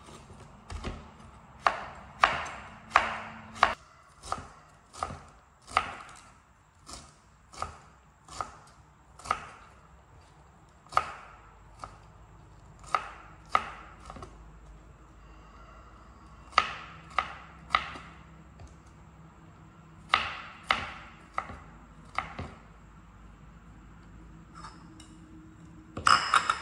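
Chef's knife slicing a cabbage wedge down onto a plastic cutting board: a string of crisp chopping strikes, about one or two a second with a few pauses, and a short clatter near the end.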